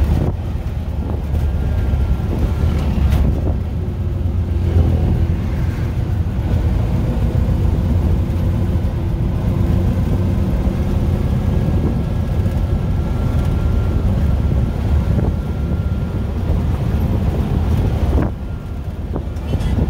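Auto-rickshaw's small engine running and road and wind rumble heard from inside its open-sided cab as it drives along, briefly quieter near the end.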